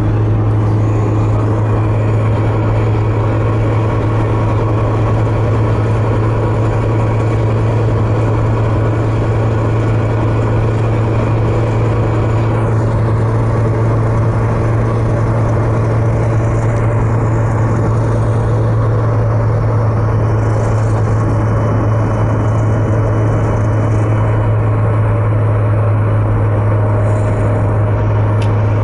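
Steady road noise and a constant low engine drone inside the cabin of a 1992 Toyota Corolla with the 1.6-litre 4A-FE engine, cruising at highway speed on level road. The suspected spark knock is not clearly heard.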